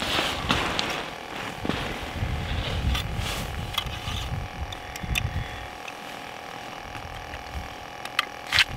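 A wooden Beaver Dam ice-fishing tip-up being handled and set over the ice hole, amid the rustle of a winter jacket. Scattered small clicks and knocks of its parts, ending in two sharp clicks near the end as it is laid across the hole, with a low rumble underneath.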